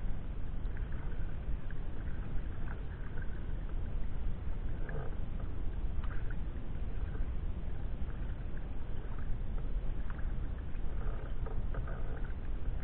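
Sea kayak paddling on a lake: scattered light splashes from the paddle strokes over a steady low rumble.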